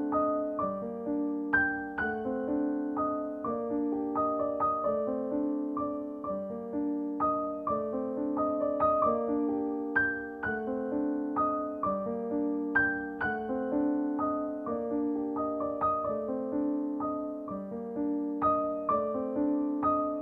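Background piano music: a tune of struck notes that ring and fade.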